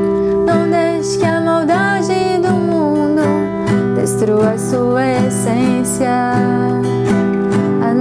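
A woman singing a Portuguese gospel song over strummed acoustic guitar.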